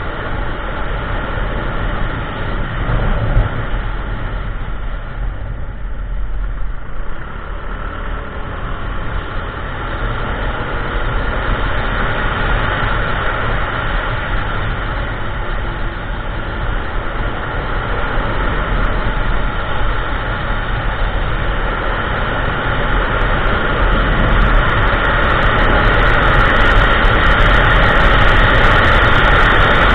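Kymco Xciting 400i maxi-scooter on the move: wind rushing over the camera microphone, with the engine running steadily underneath. The wind and engine grow louder through the second half.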